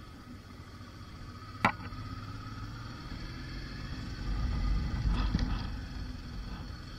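Motorcycle riding slowly along a gravel track: low engine running under tyre and wind noise, with one sharp knock about one and a half seconds in. The rumble grows louder between about four and six seconds in, with a few knocks in it.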